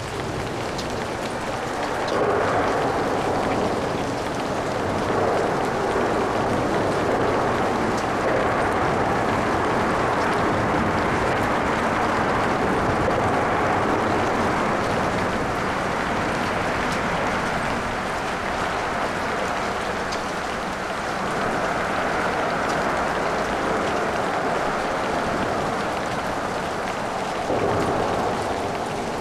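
Steady rain, with traffic on wet pavement. Tyre hiss swells and fades several times as vehicles pass.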